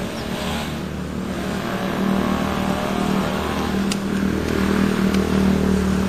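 Motor vehicle engine running, a steady low hum with a shifting pitch above it, growing louder through the second half. A single sharp click comes about two-thirds of the way in.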